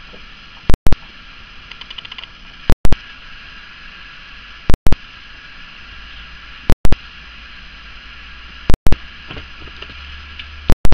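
Steady background hiss broken by a loud double click about every two seconds, a regular glitch in the recording. Faint, fast ticking of small handling noises about two seconds in and again near the end.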